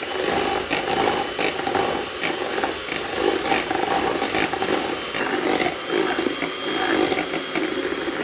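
Electric hand mixer running steadily, its motor whining at a constant pitch while the beaters clatter against the bowl as they beat the egg, milk and oil together.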